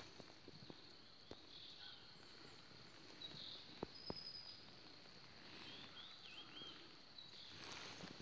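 Faint outdoor ambience: a steady, high-pitched insect drone, with a few short faint chirps around the middle and a couple of soft clicks.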